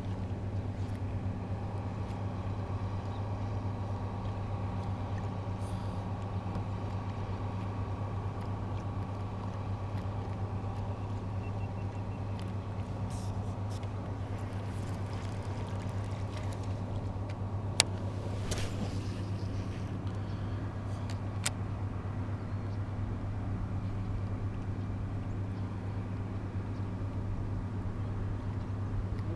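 A steady low motor hum with an even drone, broken by a few sharp clicks about two-thirds of the way through.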